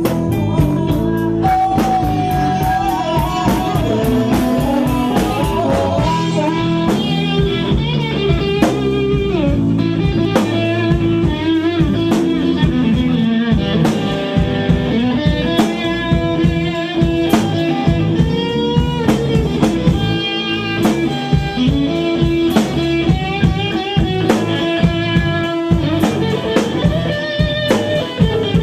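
Blues-rock band playing live through amplifiers: an electric guitar plays lead lines with string bends over a steady drum beat.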